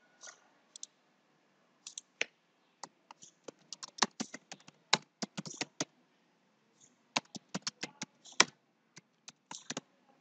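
Typing on a computer keyboard: quick runs of key clicks in two bursts, a short pause between them.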